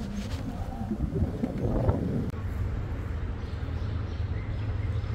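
Street traffic noise: a steady low rumble, swelling briefly about two seconds in as a vehicle passes.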